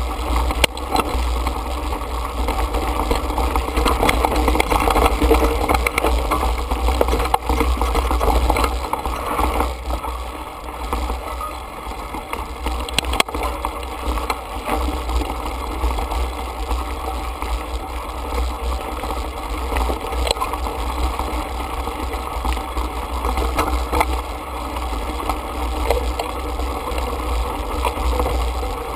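Mountain bike riding over a rocky dirt trail, picked up by a camera mounted on the bike: a steady low rumble with tyre crunch on gravel and small rattles and knocks from the bike.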